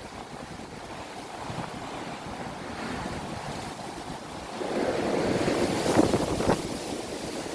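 Strong wind rushing and buffeting the microphone. The rush swells louder about halfway through, with sharp gusty blasts near the end.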